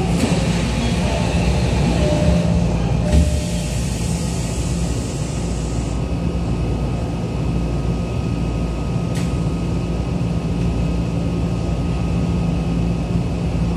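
Steady interior noise of a Tokyo Metro Marunouchi Line 2000 series subway car, a constant hum with a steady tone through it. About three seconds in, a single thump as the doors close.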